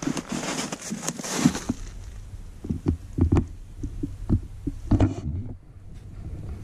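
Footsteps crunching through crusted snow and dry brush in an uneven rhythm, thinning out about five seconds in as the walker stops.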